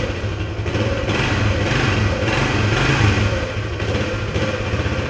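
Honda XL175's single-cylinder four-stroke engine running on the choke just after a cold kick-start, the revs rising and falling a little. It will not start cold without choke, which the owner suspects comes from a slightly gummed-up carburetor.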